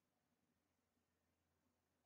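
Near silence: only a faint low hum.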